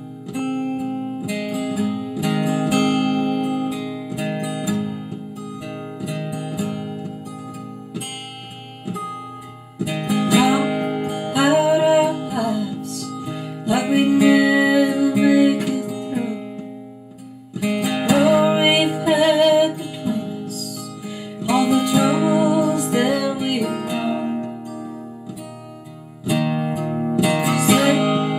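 Acoustic guitar strummed at a slow, somber pace, alone at first; from about ten seconds in a woman sings over it in phrases.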